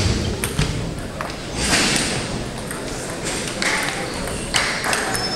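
Table tennis ball being struck and bouncing during a rally: a sharp click right at the start, the loudest sound, then a couple more clicks within the next second.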